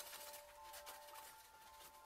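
Near silence: faint rustling and light handling noises of a paper tissue wiping a plastic projector part, over a faint steady high hum.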